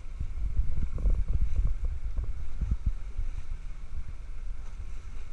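Wind buffeting the microphone over the low rumble of a moving sportfishing boat, with a run of dull thumps from about one to three seconds in.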